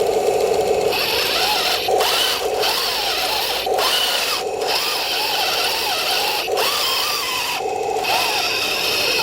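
Electric drive motors and gearboxes of an RC M26 tank with metal tracks, whining as it drives, the pitch wavering with the load and the sound cutting out briefly several times as the throttle is let off and reapplied.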